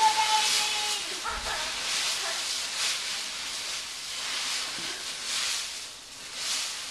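Dry fallen leaves rustling and crunching in repeated bursts as people move about in a leaf pile. A short high-pitched voice squeal is held at the very start.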